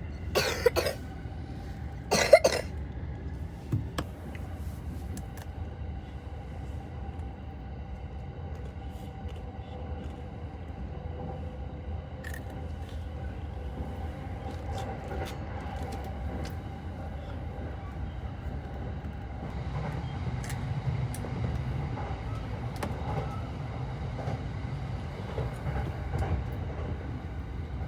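Cabin of a moving local commuter train: steady low rumble with a held electric motor whine, getting a little louder about two-thirds of the way through. Two short, sharp loud sounds come in the first few seconds.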